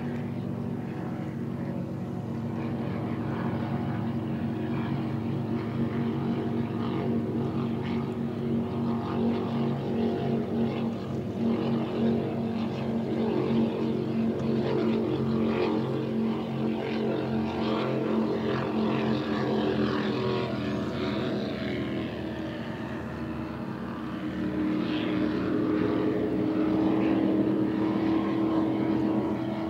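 Powerboat engines droning steadily across the water, with many overlapping engine tones. The drone swells louder about 25 seconds in as an offshore racing boat runs past.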